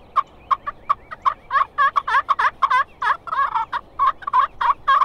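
A Triple T's pot-style friction turkey call played with two strikers at once, imitating two hen turkeys calling over each other: a quick, continuous run of short yelps, about four or five a second.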